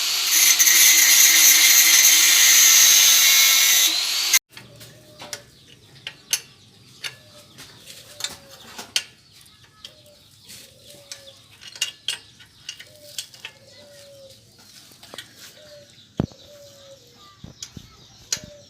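A power tool runs at high speed with a steady whine, then cuts off sharply about four seconds in. After that, a bird calls over and over with short notes about once a second, over scattered light clicks and knocks.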